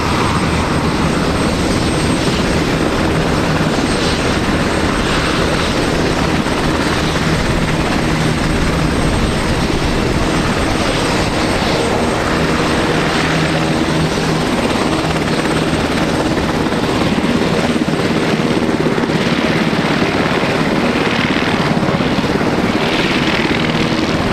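UH-60 Black Hawk helicopter running nearby: loud, steady noise from its rotor and twin turboshaft engines.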